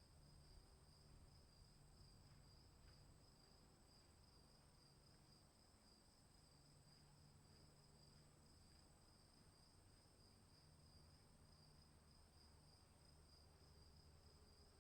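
Faint, steady night chorus of crickets, a continuous high-pitched trill at two pitches, over a faint low hum.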